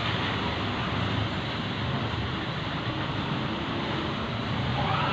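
Steady background noise: an even, unbroken rumble and hiss with no distinct events.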